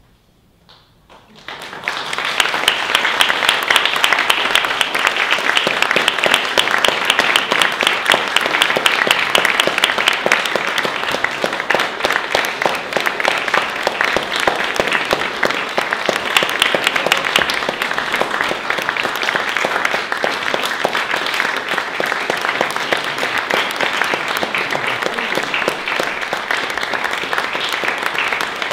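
Audience applauding, breaking out about two seconds in after a moment of quiet and then going on steadily.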